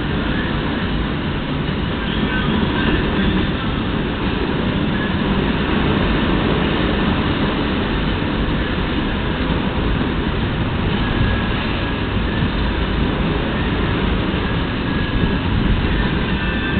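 Steady rushing and rumbling of wind and water aboard a sailing yacht under way at about 12 knots, heaviest in the low end.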